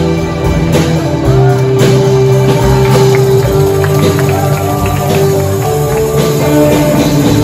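A live band playing loud, continuous music: electric and acoustic guitars over a drum kit, with long held notes.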